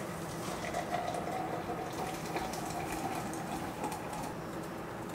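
Hot water poured in a steady stream from a gooseneck kettle into a glass French press onto coffee grounds, filling it.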